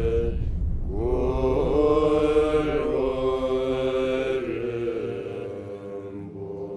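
A group of Buddhist monks chanting together in long held notes, with a brief break about half a second in; the chant then resumes and fades away near the end.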